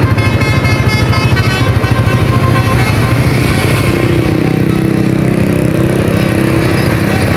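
Motorcycle engine running, with a basuri musical horn playing a multi-note tune over it for the first couple of seconds; a steady lower tone comes in about four seconds in.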